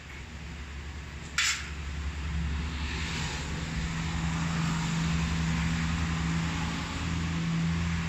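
A steady low engine hum that swells about two seconds in and holds, with a single sharp click just before it.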